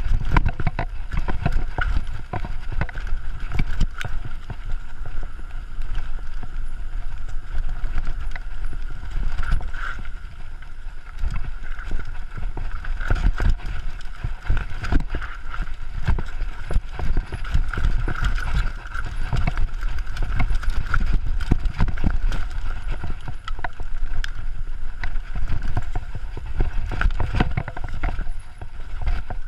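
Mountain bike rattling down a rough dirt and rock downhill trail: a steady low rumble with constant irregular knocks and clatter from the bike as it hits bumps.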